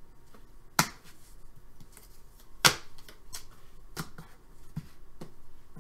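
Trading cards and a clear plastic card holder handled by hand: two sharp plastic clicks, the first about a second in and the second about two seconds later, with lighter taps and rustles between and after.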